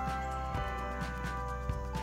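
Background music with long held notes over a steady low bass.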